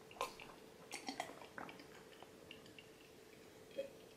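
A man gulping down a pint glass of drink in one go: faint, irregular swallows and small wet mouth sounds.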